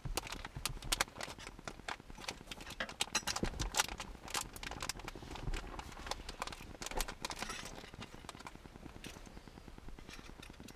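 Quick, irregular clicks and light knocks of hands and a tool working a car's interior light fixture loose. The clicking thins out near the end.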